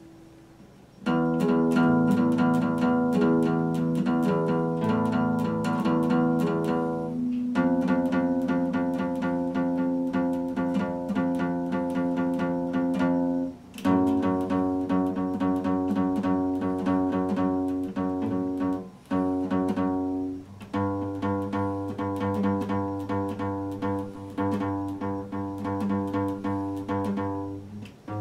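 Epiphone acoustic guitar being strummed, starting about a second in. Each chord is held for several seconds under rapid strokes, then changes to the next.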